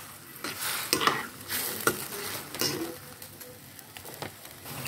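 Metal spatula stirring and scraping in a hammered aluminium wok of soy-sauce gravy with onions and chilli, the sauce bubbling and sizzling as it heats toward the boil. Several separate scrapes come in the first three seconds, then it quietens.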